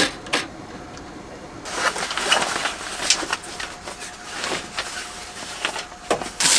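A telescoping curtain rod being fitted into holes in the van's bare metal body panels: a sharp click at the start and another just after. From a little under two seconds in come rustling and scraping as a large sheet is hung on the rod, with a few sharper knocks.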